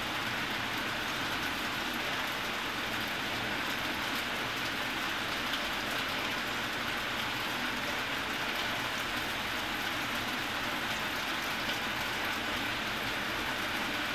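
Steady, even background noise at a constant level, with no distinct events.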